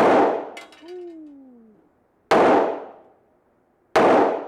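Three gunshots at a shooting range, about two seconds apart, each sharp crack dying away quickly.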